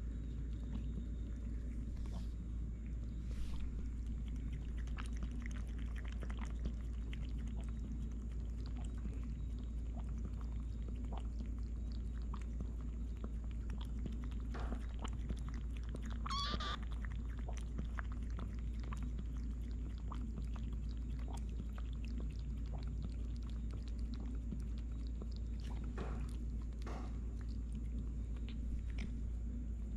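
Cats eating dry kibble from a plastic bowl: scattered small crunching clicks over a steady low hum, with one short high meow about halfway through.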